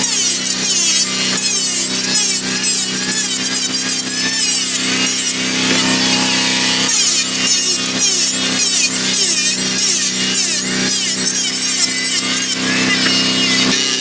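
Modern M2920 electric hand planer running with a steady motor whine while its blades shave a timber beam, giving a continuous rasping cutting noise.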